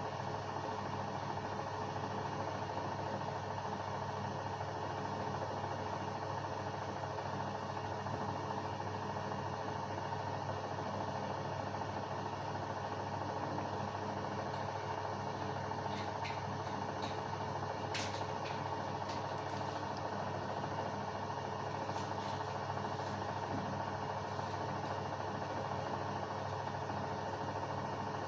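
LG WD-1054FB front-loading washing machine running steadily with a constant motor hum. A few faint clicks come about two-thirds of the way through.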